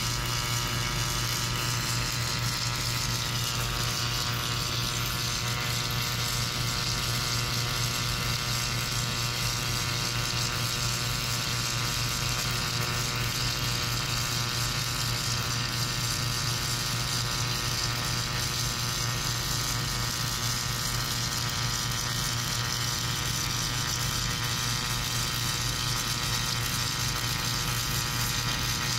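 Submerged arc welder running a weld pass under granular flux: a steady electrical hum with an even hiss over it, unchanging throughout.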